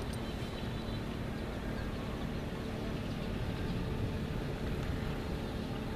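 Steady engine hum and road noise of a moving vehicle, running at an even pace without changes.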